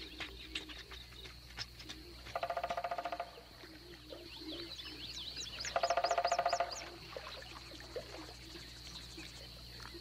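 Wild animal calls: two rapid pulsed, rattling calls of about a second each, about two and six seconds in. Fainter high, quick chirps and a thin steady high tone run beneath them.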